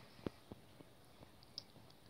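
Faint scattered clicks, about five in two seconds, the sharpest about a quarter-second in: fingers handling a small piece of candy and its wrapper.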